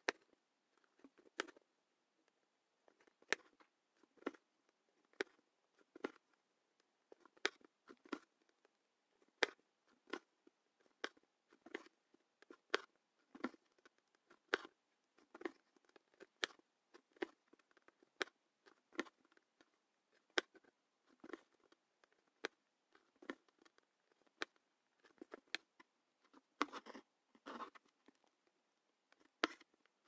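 Embroidery needle punching through taut hooped fabric and thread being drawn through, giving short sharp clicks about once a second as long and short stitches are worked. Near the end there is a longer scratchy rustle.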